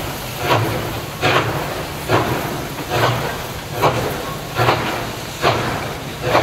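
SY class 2-8-2 steam locomotive working hard with a heavy loaded coal train on an incline: slow, evenly spaced chimney exhaust beats, a little more than one a second, over a steady steam hiss.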